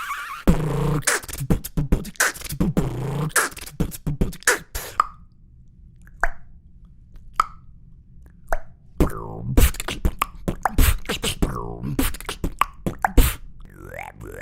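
Human beatboxing: rapid vocal kick, snare and hi-hat hits. The pattern thins to a few isolated clicks about five seconds in, then picks up again densely about nine seconds in, with gliding vocal tones near the end.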